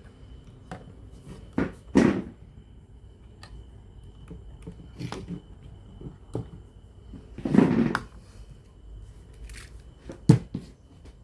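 Scattered clicks and knocks of tools and small parts being handled on a workbench during a radio repair, with two short scraping sounds about 2 and 7.5 seconds in and a sharp knock near the end, over a faint steady high whine.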